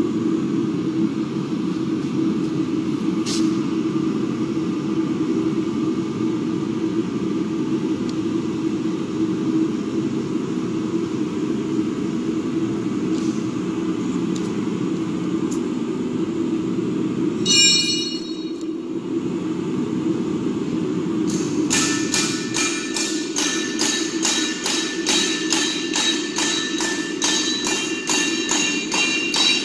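Background music: a steady low drone, with a brief ringing chime just past the middle. About two-thirds of the way through, a ringing percussive beat of about three strikes a second joins it.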